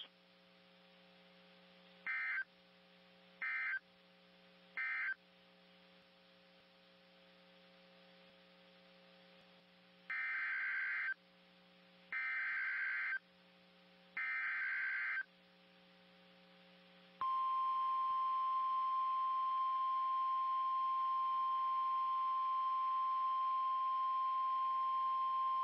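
Emergency Alert System SAME data tones. Three short screeching end-of-message bursts come about two to five seconds in, then three longer header bursts for the next alert about ten to fifteen seconds in. Then a single steady 1050 Hz weather-radio warning alarm tone sounds from about seventeen seconds in until near the end, over a faint low hum.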